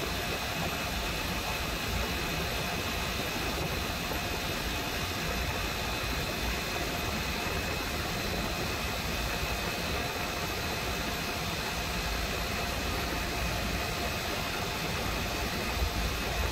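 Refrigeration compressor on a Hussmann Protocol rooftop rack running with a steady hum and a few constant tones, with a brief sharp click near the end. The compressor intermittently clicks and drops its current for about a second every 20 to 40 seconds; the technician finds it dead and in need of replacement, a behaviour he puts down to its windings.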